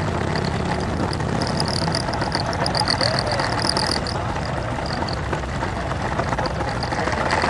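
Engines of a column of cruiser motorcycles running together as they ride slowly in a group, heard from one of the bikes in the line.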